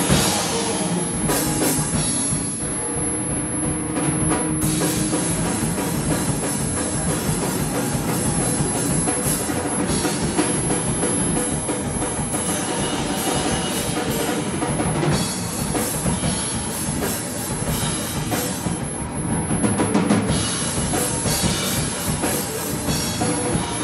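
Live rock band playing loudly: a Pearl drum kit with heavy bass drum, electric guitar, and a singer on a microphone.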